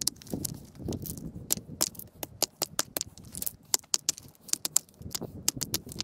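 Rapid, irregular light clicks and clatter, with a low rumble in the first second.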